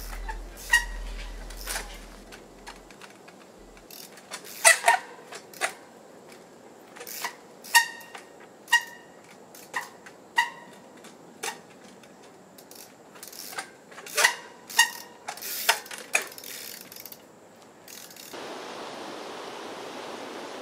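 Trials bike hopping and landing on boulders: irregular sharp knocks of tyres and rims striking rock, with lighter clicks between. Several of the hits carry a brief metallic ring. Near the end a steady hiss replaces them.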